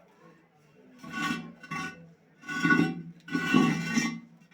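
A hand tool rasping back and forth on a plumbing part: five rasping strokes with short pauses between them, each with a ringing, squeaky edge, the fourth the longest.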